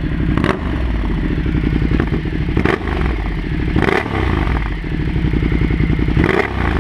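Ducati Multistrada 1200S L-twin running through a Termignoni slip-on exhaust, warmed up, with a few short blips of the throttle.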